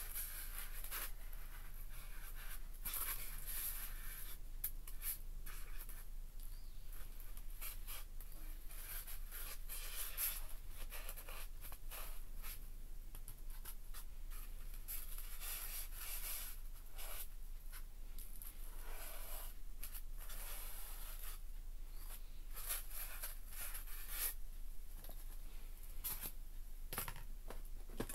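Scratchy rubbing and rustling in irregular bursts as hands handle and press on a dead sawtail surgeonfish lying on a polystyrene foam board. A faint steady low hum runs underneath.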